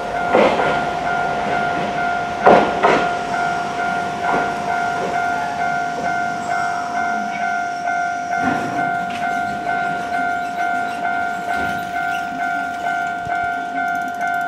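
Japanese level-crossing warning bell ringing in a steady electronic two-tone pulse, about one and a half strokes a second. A Hankai tram passes over the crossing, its wheels clunking over the rail joints, loudest about two and a half seconds in.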